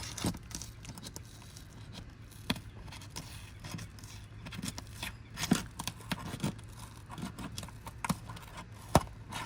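Roof snake prying up 3-tab asphalt shingles: the sealant bonds pull apart with scattered crackly tearing and tapping, and a few sharp knocks of the tool. The tearing is the shingle mat ripping away onto the sealant strip (mat transfer), which leaves the shingle unable to reseal.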